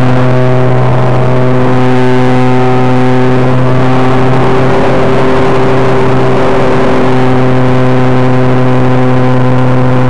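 Engine of an R/C T-28D Trojan model airplane running loud at a steady pitch, heard from a camera riding on board, with air rushing past.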